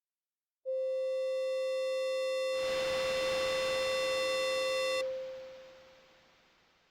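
A steady electronic tone with a ringing overtone stack starts about half a second in, and a hiss joins it about two seconds later. Both cut off together near the five-second mark and fade out in a long echoing tail.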